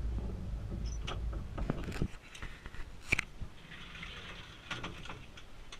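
Aerial tram cabin and its fittings: a low rumble for about two seconds, then scattered sharp clicks and knocks, the loudest about three seconds in.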